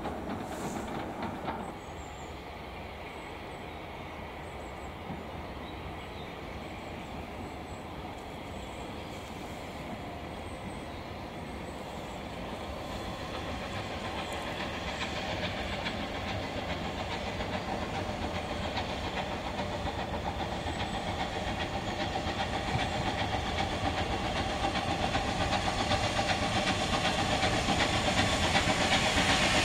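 A steam-hauled train approaching, its running noise growing steadily louder.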